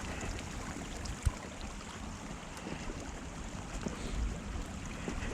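A small stream running beside the path, mixed with wind buffeting the microphone in a snowstorm. A single dull knock about a second in.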